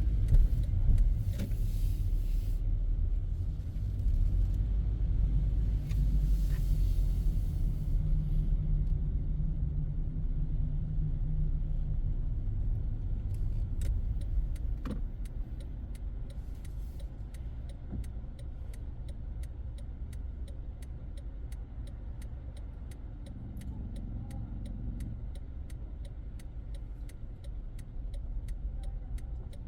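Car driving through city streets, heard from inside: a steady low road and engine rumble that eases off about halfway through, with a run of evenly spaced faint ticks in the second half.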